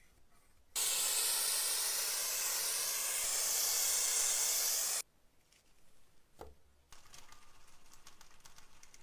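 Aerosol spray can hissing in one continuous burst of about four seconds that starts and stops abruptly. A fainter, crackly hiss follows near the end.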